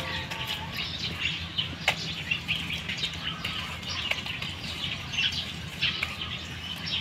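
Small birds chirping rapidly and continuously, with two sharp clicks about two and four seconds in.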